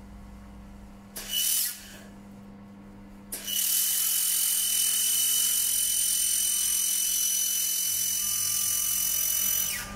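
A 1500-watt handheld fiber laser welder firing on nearly 4 mm stainless steel: a short burst about a second in, then a steady loud hissing with a steady high tone from about three and a half seconds, which stops just before the end.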